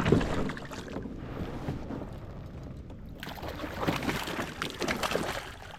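Irregular water splashing and knocks around a kayak as a big bass is fought and brought in, loudest right at the start and busy again from about halfway through.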